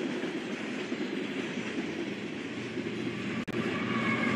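Freight cars rolling past on the rails: a steady rumble and rattle of steel wheels on track. A brief drop about three and a half seconds in, after which a thin high ringing tone joins the rumble.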